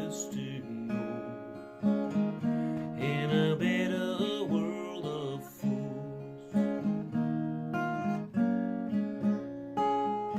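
Acoustic guitar strummed and picked in a slow country-blues instrumental passage, chords struck about once a second.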